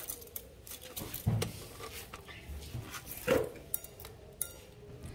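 Steel machine shafts and metal parts clinking and knocking against each other as they are handled, a few separate knocks with the loudest about three seconds in.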